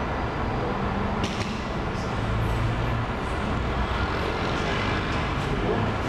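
Steady road and engine rumble of a moving car, heard from inside the cabin, with low engine tones shifting in pitch and a faint click about a second in.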